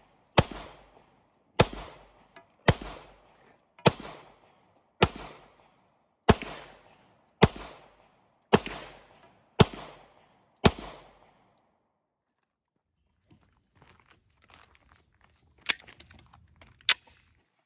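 Glock 22 pistol, chambered in .40 S&W, fired ten times at a steady pace of about one shot a second, each shot echoing briefly. After a pause with faint handling noise, two sharp clacks come near the end.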